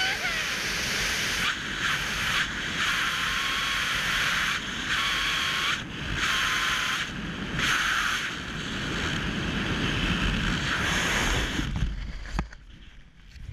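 Loud wind rush over a helmet camera's microphone during a wingsuit flight, cutting off abruptly about twelve seconds in as the parachute opens, followed by a single sharp snap.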